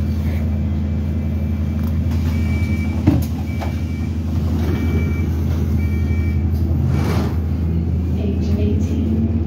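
London bus built by Alexander Dennis, heard from inside, its engine running with a steady low drone. A few short high beeps sound in the middle, and a sharp knock comes about three seconds in.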